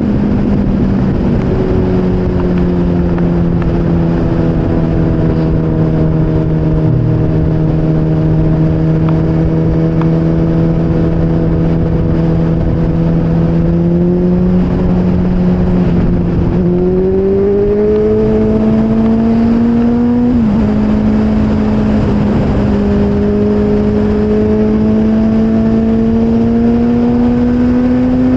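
Motorcycle engine at a steady cruise over a constant noisy rush. Its note eases slightly, jumps up about two-thirds in, then climbs steadily as the bike accelerates, with a brief dip near three-quarters through.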